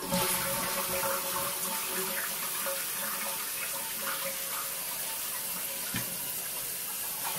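Toilet cistern refilling after a flush through a new Fluidmaster 400 fill valve: a steady rush of water, with the tank filling fast.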